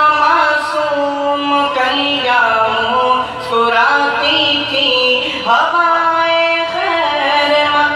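A young man singing an Arabic devotional qasida unaccompanied, holding long ornamented notes that slide from one pitch to the next.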